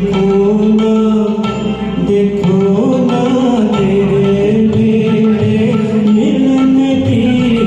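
Hindi film song sung to a karaoke backing track, with long held notes that slide between pitches.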